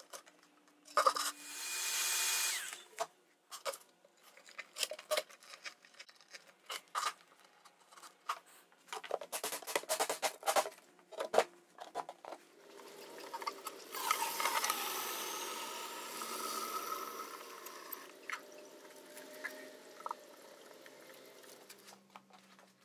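Hands working a white plastic bucket and its fittings: a run of clicks and knocks, with a brief scraping rub about a second in and a longer rubbing passage past the middle, as a rubber-grommet valve stem is pushed through the bucket wall and rubber corks are pressed into the lid.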